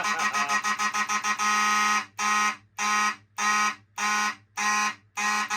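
Fire alarm horn sounding in a coded pattern set by a NAC coder. It pulses rapidly, about seven times a second, then holds one steady blast of about half a second, then switches to slower half-second on-off pulses, as the coder changes to a different code.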